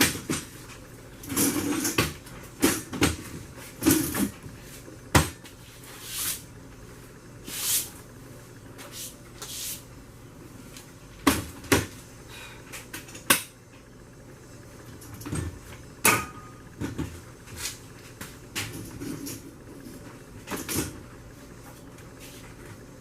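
Irregular knocks, clunks and rattles of a table being wrestled upright and its legs and locking bar worked into place, with a few sharper bangs among them.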